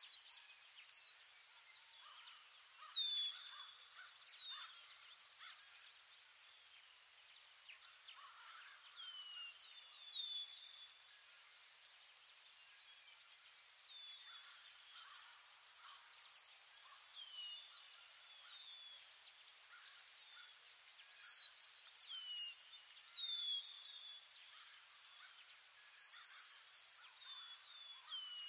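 Ambient forest soundtrack: insects keep up a steady, evenly pulsing high-pitched chirr while birds give short down-slurred whistled calls, often in pairs, every second or two.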